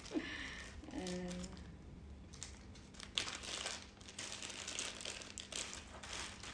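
Thin clear plastic bag crinkling and rustling in irregular crackles as a small crystal pendant is unwrapped by hand.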